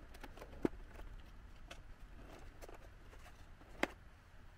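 Foil-lined paper lid being peeled off a plastic snack cup of potato sticks: soft crinkling and scraping, with a few sharp clicks from the lid and cup, the loudest about two-thirds of a second in and again near the end.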